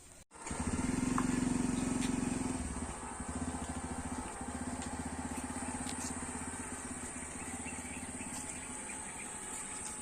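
A motor vehicle's engine running with a steady low pulse, louder for the first two seconds or so and then settling to an even level.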